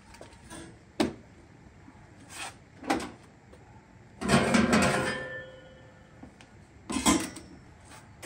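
Aluminum fuel cell being shifted and set down on its mounting plates: a sharp clunk about a second in, another near three seconds, a longer scraping clatter around four to five seconds that rings briefly, and a double clunk near seven seconds.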